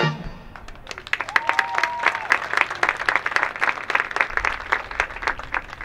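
A marching band's brass music cuts off, then the audience applauds, with a short cheer about a second and a half in; the clapping thins out near the end.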